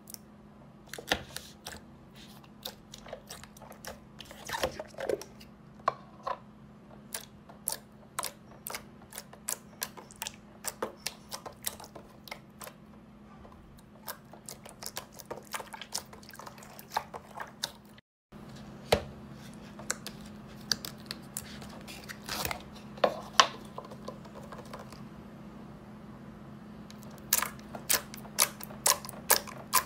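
Slime being squeezed and poked by hand, giving many irregular sharp pops and crackles, several a second, in clusters with short lulls between them.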